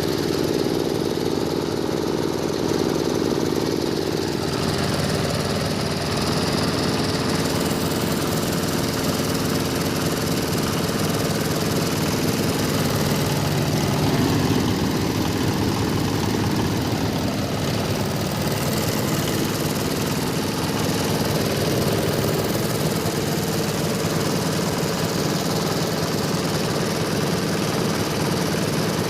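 Engine-driven hammer mill for grinding rice husks and bran, running steadily with a continuous mechanical drone.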